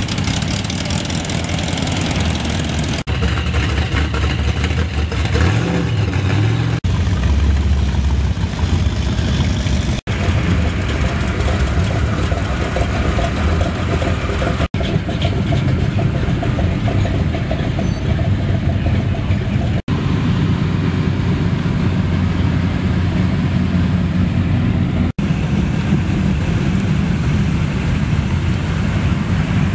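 Rat rod pickup trucks driving slowly past one after another, engines running with a deep low note. The sound breaks off and changes every few seconds as one truck gives way to the next.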